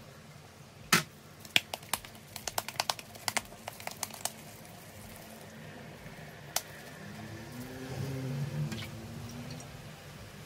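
Small glass bowl knocking and tapping against a steel pot as cooked rice is scooped and pressed into a ball: one sharp knock about a second in, a quick run of lighter taps over the next few seconds, and one more near the middle. Near the end a low hum swells and fades.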